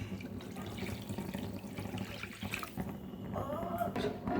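Water being poured into a pan of wheat flour fried in ghee, a steady pour.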